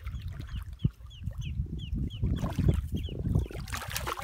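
A hooked roncadera thrashing and splashing at the surface as it is reeled in to the bank, the loudest splashing about two and a half seconds in and again near the end. Wind rumbles on the microphone throughout, and a high chirp repeats about three times a second.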